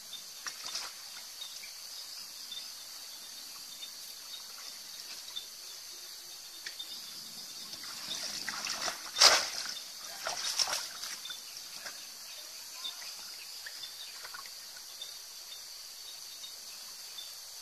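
Water splashing and sloshing as a bamboo plunge basket is worked into a shallow, muddy pond, with a burst of splashes about eight to eleven seconds in, the loudest near nine seconds. Under it, a steady high drone of insects.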